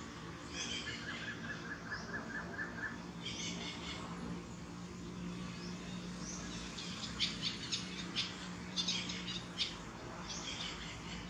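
Birds chirping: a quick run of about eight even notes in the first three seconds, then bursts of high chirps, with a cluster of sharp, louder chirps in the second half.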